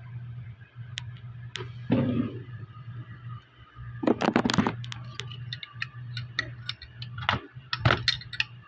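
Hard plastic parts of a Masters of the Universe Stridor action figure clicking and clattering as they are handled and fitted, with scattered sharp clicks, a louder clatter about four seconds in and a quick run of clicks near the end. A steady low hum runs underneath.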